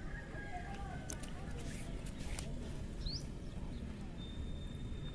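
Faint outdoor ambience: distant voices in the first second, a short rising bird chirp about three seconds in, and a thin steady high tone near the end, over a low background hum.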